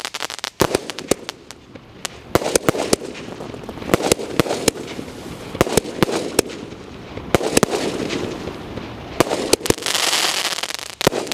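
A Diwali sky-shot aerial firework firing, its shells bursting overhead: an irregular string of sharp bangs and crackles, at times several a second, with hissing between the reports.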